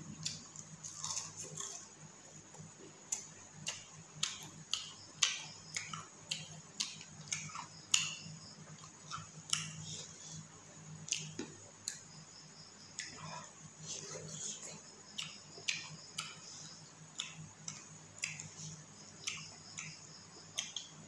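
Close-miked eating: irregular wet clicks and smacks of chewing with the mouth, along with fingers squishing and mixing rice and curry on a plate. A low steady hum runs underneath.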